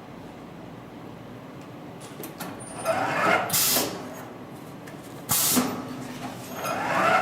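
HighTex 828C automatic hot-knife webbing cutting machine working through its cutting cycle: twice a rising whir from the feed, each followed by a short sharp hiss like air being released.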